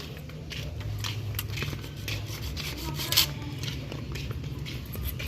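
An umbrella being repaired by hand: rubbing and scraping with scattered small clicks, and one sharper click about three seconds in.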